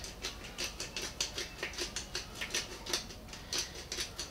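Fish fillets being seasoned in a metal roasting tray: a run of small, irregular dry clicks and crackles, about three or four a second, from pepper being ground or sprinkled over the fish.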